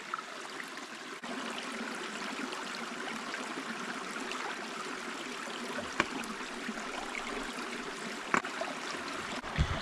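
Small creek running steadily, with two sharp knocks about six and eight and a half seconds in.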